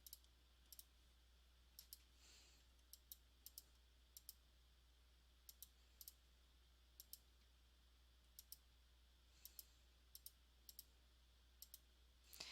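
Faint, sharp button clicks, often in quick pairs, about once a second, as numbers are keyed into a graphing calculator's statistics list editor.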